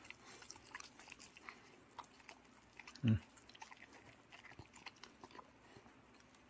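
Dogs eating steamed sweet potato from a hand: soft chewing, licking and lip-smacking clicks. One short, low voice-like grunt about three seconds in is the loudest sound.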